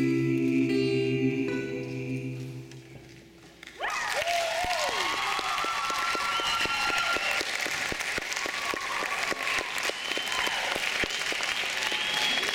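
A song with acoustic guitar ends on held notes that fade away, and about four seconds in an audience breaks into applause with cheering and whistling that goes on steadily.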